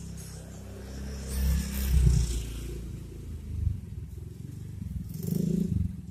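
Low engine rumble of motor traffic, swelling twice with a scraping hiss.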